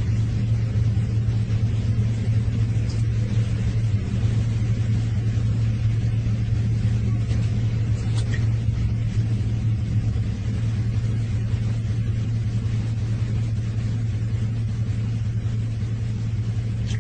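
A steady low hum with a rumbling noise beneath it, unchanging in pitch and level.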